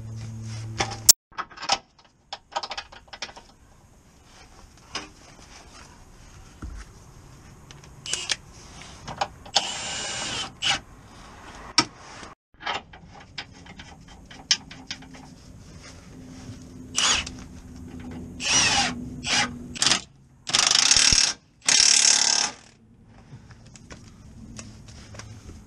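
Cordless impact wrench running on bolts under a car in short bursts, the two longest about a second each near the end, amid clinks and knocks of tools and parts.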